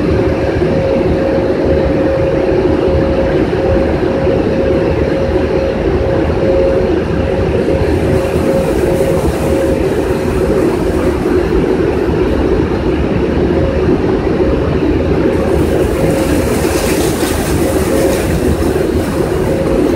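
Car-wash dryer blowers running: a loud, steady rush of air with a steady hum under it. About fifteen seconds in the air noise turns brighter and hissier as the variable-speed blower motors spin up and more of them come on.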